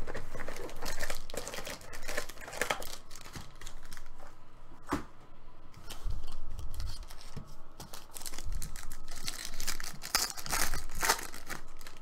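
Trading-card pack wrappers and cardboard being handled: repeated rustling and crinkling, with tearing as a pack is ripped open, and a sharp tap about five seconds in.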